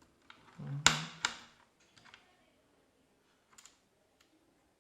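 A few sharp clicks and small knocks of small laptop parts and screws being handled on a work surface. The loudest click comes about a second in, with another right after it and a faint tick near the end.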